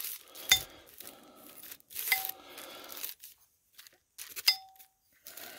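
Metal spoon scraping and spreading thick condensed cream of chicken soup over chicken in a plastic-lined crock pot, with the liner crinkling. Two sharp clinks of the spoon, the second about four and a half seconds in and ringing briefly.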